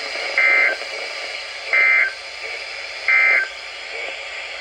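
Emergency Alert System end-of-message data bursts: three short, identical bursts of buzzing digital tones about 1.3 seconds apart, over steady radio hiss. These bursts signal the end of the alert message.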